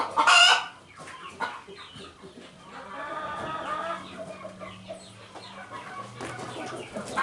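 Chickens clucking and cackling, with a loud call in the first half second and quieter calls after.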